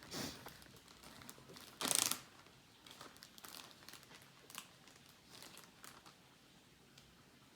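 Plastic zip-top bag crinkling and rustling as it is handled, with one louder burst of crinkling about two seconds in and lighter rustles after.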